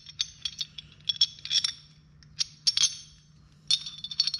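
Steel D-ring tie-down clinking and rattling against its mounting clip as it is handled and turned over, in four short clusters of bright metallic clinks about a second apart.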